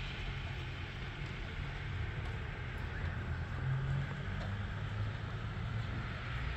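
Steady low rumble of background noise, with a faint hum and no music or speech.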